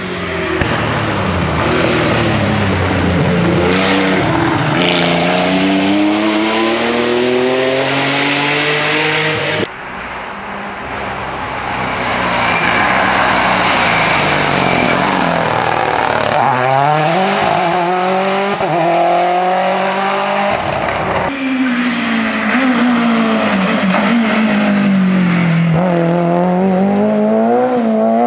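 Rally cars driven flat out past a stage roadside, one after another: engines revving up and dropping with each gear change and lift, among them a classic Porsche 911, a Mini rally car and a Renault Clio. The engine sound cuts abruptly between cars, and is quieter for a few seconds after about ten seconds in.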